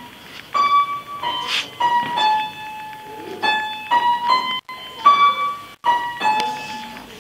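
Upright piano played by hand: a simple melody of separate notes, each struck and ringing as it fades, about one to two notes a second. The sound drops out completely for an instant twice near the middle.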